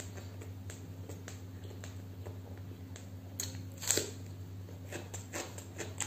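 Close-up eating sounds: small wet mouth clicks and chewing, with a louder bite about four seconds in as she bites into a fried pakora. A steady low hum runs underneath.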